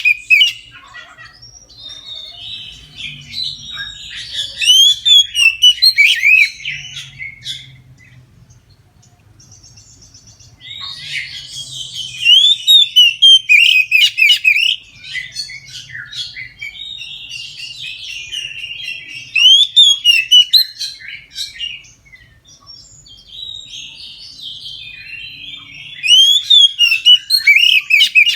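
Oriental magpie-robin (kacer) singing in loud bouts of quick, varied whistled phrases, with a quieter lull about a third of the way in before the song picks up again. This is the full, open 'ngeplong' song that keepers play to prompt their own birds to sing.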